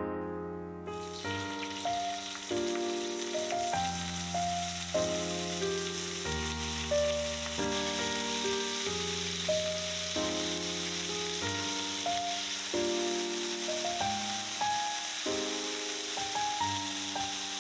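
Chicken pieces sizzling as they fry in hot oil in a nonstick pan. The steady hiss starts about a second in, under background music.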